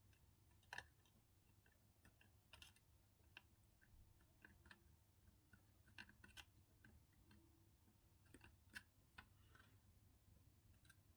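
Near silence with faint, irregular small clicks and scratches of a hand tool working at a solder joint, about a dozen scattered ticks over several seconds, over a low steady hum.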